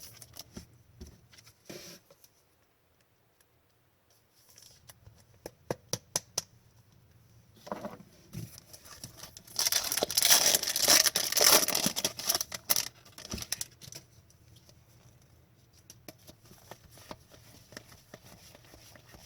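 Foil wrapper of a hockey card pack being torn open and crinkled for a few seconds around the middle, with light clicks from cards being handled before and after.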